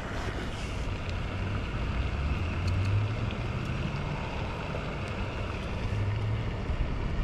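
Wind buffeting the camera microphone: a steady low rumble that swells in gusts about three seconds in and again near six seconds.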